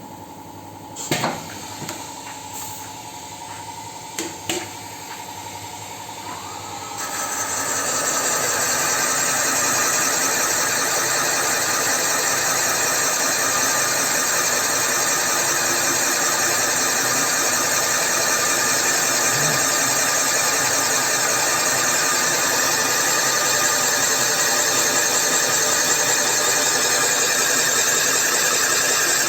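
A few knocks and clicks, then about seven seconds in a machine tool starts up and runs steadily with a whine: the cutter boring pockets for valve seats in a D-240 diesel cylinder head.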